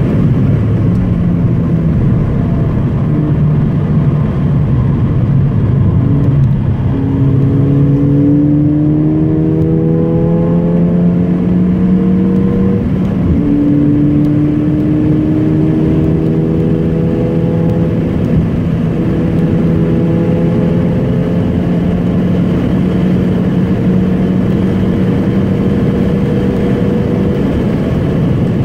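Car engine heard from inside the cabin, pulling hard along the track, its pitch climbing slowly and dropping back at each gear change, over steady road and tyre noise.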